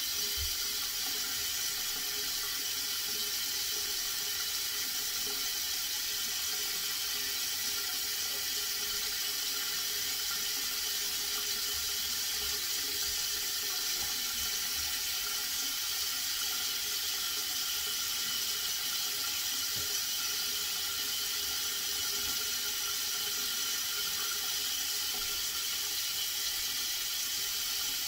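Water running steadily, an even hiss that does not change.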